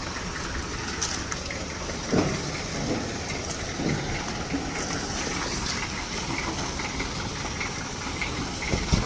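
Road roller's diesel engine running steadily as it works the freshly wetted road, with a couple of brief knocks.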